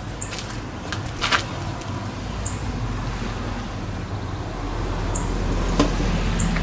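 Wind noise on the microphone over a steady low hum, with a few sharp clicks and four brief high-pitched chirps.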